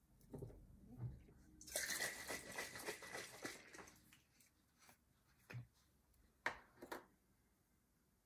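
Crow garlic heads and dry papery onion skins crackling and rustling as they are pressed by hand into a glass jar, densest for about two seconds; then a few sharp clicks.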